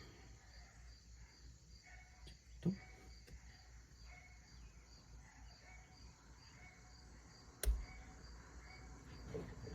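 Crickets chirping faintly and steadily, with a soft knock a few seconds in and a single sharp click later, the loudest sound.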